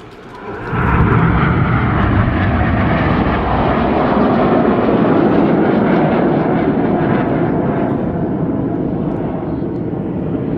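Red Arrows BAE Hawk T1 jets, each with a Rolls-Royce Turbomeca Adour turbofan, flying past: loud jet noise that comes in suddenly about a second in and holds, easing slightly near the end.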